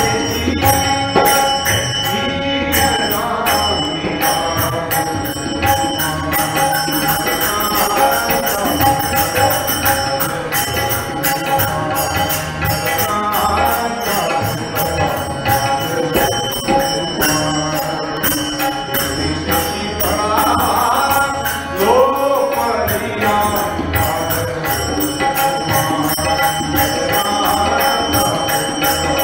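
Devotional bhajan music: a voice singing over a steady drone, with jingling percussion keeping an even beat.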